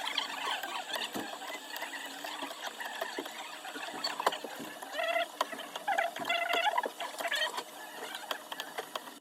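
Small hand tools working on an iPhone 12 Pro Max's back: quick scratching, tapping and clicking, with short squeaks in the middle.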